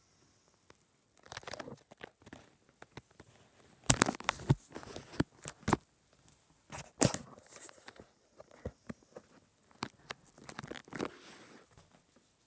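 Handling noise from a phone being moved about in the hand: irregular knocks, taps and rubbing of fingers and skin on the phone near its microphone, loudest about four and seven seconds in.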